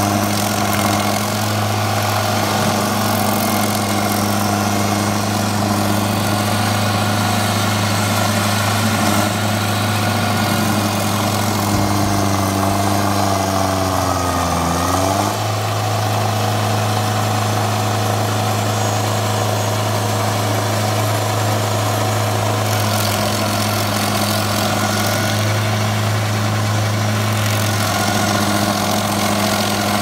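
Engine of a heavy wood-processing machine running steadily at a constant pitch. About halfway through, its pitch sags for a second or two, then it jumps abruptly back to a steady run.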